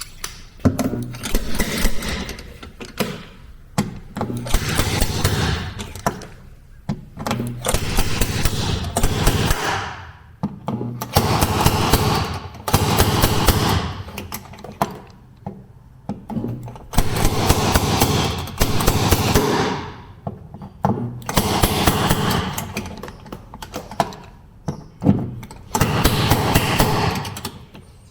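Power tool hammering rapidly on the sheet metal of a truck cab, in about seven bursts of one to three seconds with short pauses between.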